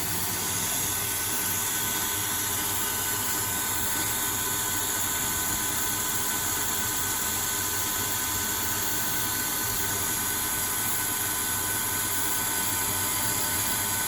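CNC lathe turning D2 tool steel, a grooving tool cutting the corners of a V groove with the spindle running and mist coolant spraying. A steady hiss with a thin, steady whine.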